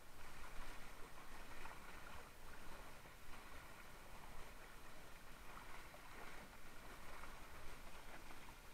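Water rushing and splashing along the hull of a Mistral Superlight windsurf board as it sails through light chop, a faint, uneven hiss that swells and eases.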